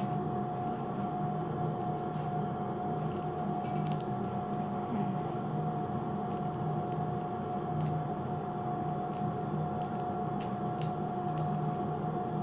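Sugar wax being pressed onto and peeled off armpit skin with the fingers, giving small sticky clicks and smacks at irregular intervals. A steady hum runs underneath.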